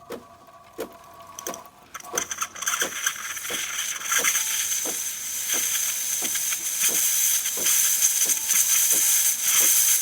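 A DeLonghi Magnifica espresso machine's steam wand starts hissing about two seconds in and builds to a steady, loud hiss with a high whistling edge. Under the hiss, a regular clicking from the machine repeats about every two-thirds of a second. The steam output is good, as expected from a machine just serviced for a leaking steam boiler.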